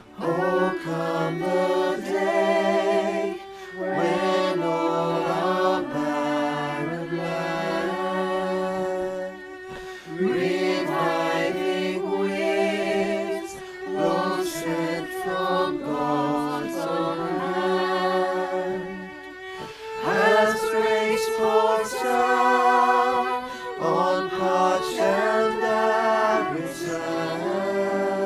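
Vocal music: singing voices holding long notes with vibrato, in phrases of a few seconds with short breaks between them.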